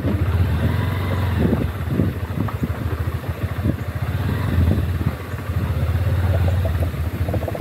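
Honda CB200X motorcycle's single-cylinder engine running at road speed, heard from the moving bike.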